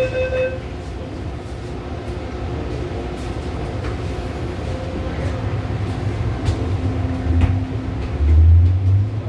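Inside an MTR M-Train car: the door-closing warning beeps stop about half a second in. Then the standing train rumbles steadily, and near the end a low hum and deep rumble build as the traction motors start and the train begins to pull away.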